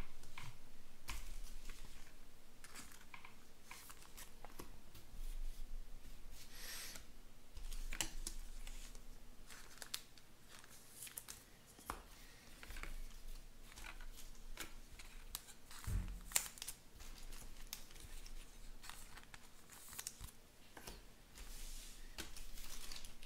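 Trading cards being handled and sorted: many light clicks, flicks and swishes of card stock, with a soft thump about sixteen seconds in.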